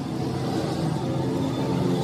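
Background music with sustained low notes.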